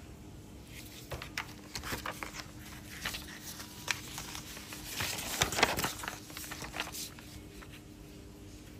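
Printed paper sheets rustling and crinkling as they are flipped over by hand: a run of short rustles and ticks, loudest about five to six seconds in.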